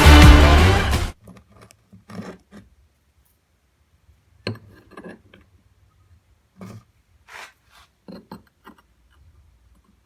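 Loud music cuts off about a second in, followed by scattered faint clinks and knocks, a dozen or so spread over the rest, typical of scrap steel pieces being handled on a workbench.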